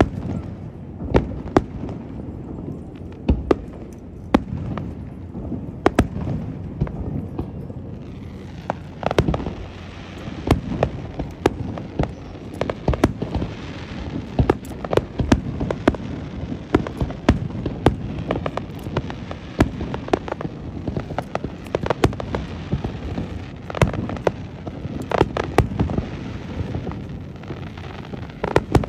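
Fireworks launching and bursting in quick, irregular succession, many sharp bangs one after another. A steady hiss fills in underneath from about a third of the way in.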